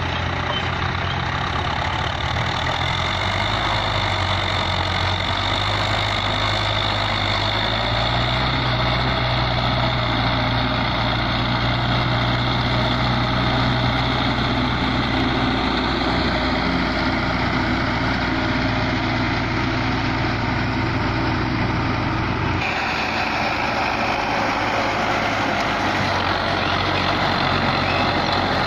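Diesel tractor engines running steadily under load while pulling rear scraper blades to level ploughed soil. The engine note shifts abruptly about two-thirds of the way through.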